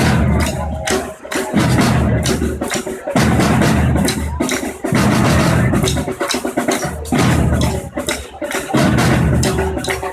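Afro-Brazilian bloco afro drum ensemble playing a loud, driving rhythm: deep surdo bass drums pound in phrases that repeat about every second and a half, over rapid, sharp strokes from the higher drums.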